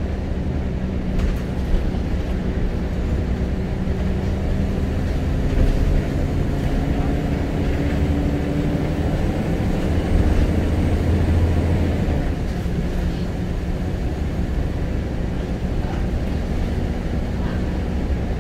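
Scania L94UB Wright Solar single-decker bus's nine-litre five-cylinder diesel heard from inside the cabin while under way. Its pitch climbs steadily as the bus accelerates, swells to a low rumble at its loudest, then drops and runs steadier and lower after about twelve seconds, over a constant road and body rumble.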